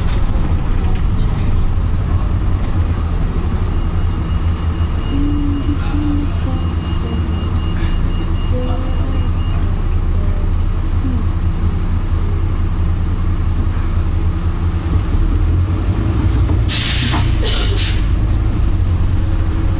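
Volvo B9TL double-decker bus engine running steadily under way, heard from inside the bus, with two short 'pshhh pshhh' air hisses in quick succession near the end. It is the hiss normal to B9TL Geminis, which on this bus comes every few seconds instead of every couple of minutes.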